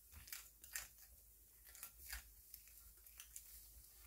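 Faint, irregular scrapes and crunches of crumbly biscuit-mix dough being stirred in a glass bowl, a short stroke every half second or so.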